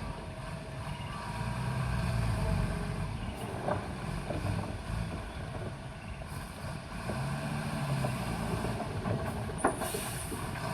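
Bulldozer's diesel engine running, its deep rumble swelling twice as it works, with a few metallic clanks; one sharp clank near the end is the loudest.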